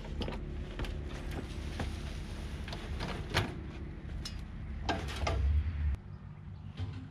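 A loaded wheelbarrow knocking and rattling as it is pushed up a wooden plank and tipped, with compost thudding into a raised bed, over a steady low hum that cuts off about six seconds in.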